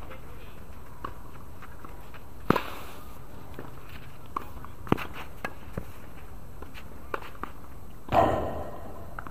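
Tennis rally on a hard court: sharp pops of racket strikes and ball bounces a second or two apart, the loudest about two and a half and five seconds in, with footsteps on the court between them. Near the end a louder, noisier burst fades away over about a second.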